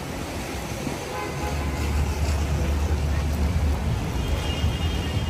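City street traffic on wet pavement in the rain: a steady low rumble that swells from about a second and a half in, over an even hiss of rain and tyres.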